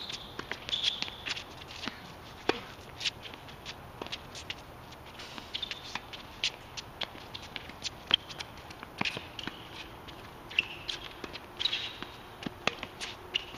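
Tennis rally on an outdoor hard court: sharp racket strikes on the ball and ball bounces, with footsteps and short shoe squeaks between them.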